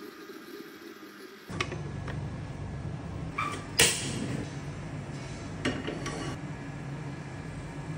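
Gas stove burner lit and burning with a steady low rumble. Sharp clicks and knocks of handling come through it, the loudest about four seconds in, and a metal wok clanks as it is set down on the burner grate about six seconds in.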